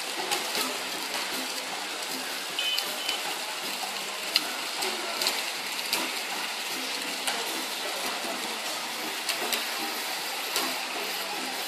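Steady hiss of outdoor crowd ambience with faint voices, broken by scattered light clicks and rustles as crumpled paper is pressed onto and lifted off the wet spray paint.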